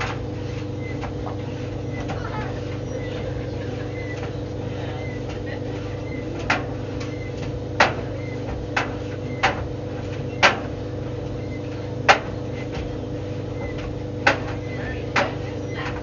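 White Knight tumble dryer running with a steady hum as the drum turns. From about six seconds in, the tumbling load knocks against the drum about eight times at uneven intervals.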